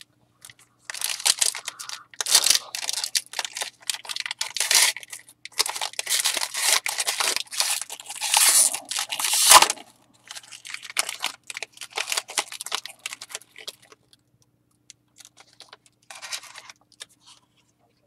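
Wrapper of a trading card pack crinkling and tearing in irregular bursts of crackle, heaviest through the first ten seconds, thinning out after, with one last short burst near the end.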